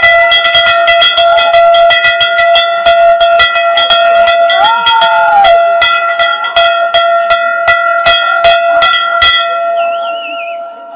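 A bell rung rapidly and unevenly: quick, irregular clapper strikes over one sustained ringing note. The strikes stop about nine seconds in, and the ring fades out after them.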